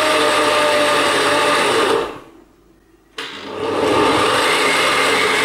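Countertop blender with a glass jar pureeing a thick mash of habanero peppers and fruit. The motor runs, winds down and stops about two seconds in, then starts again a second later and builds back up to full speed.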